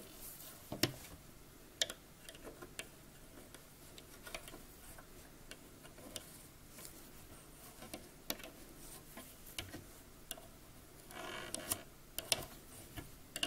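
Faint, irregular light clicks and ticks of a metal loom hook knocking against the plastic pegs of a round knitting loom as loops are lifted off during the bind-off, with a denser run of clicks near the end.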